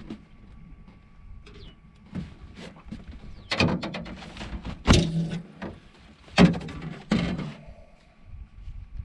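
Handling noise on a small fishing boat while a hooked fish is being played: a run of loud knocks and scrapes about three and a half, five, six and a half and seven seconds in, over a faint steady hum.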